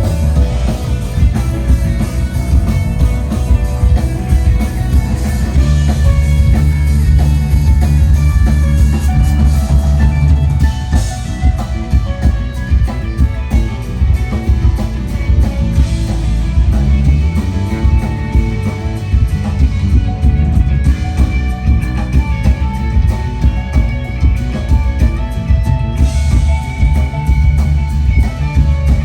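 Live rock band playing an instrumental groove: bass guitar holding deep notes under guitar and a drum kit keeping a steady beat.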